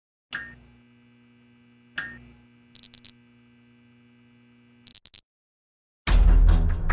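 Neon-sign sound effect: two clunks of lights switching on, each followed by a steady electrical buzz, with short crackling flickers about three and five seconds in. Loud music with a beat begins about six seconds in.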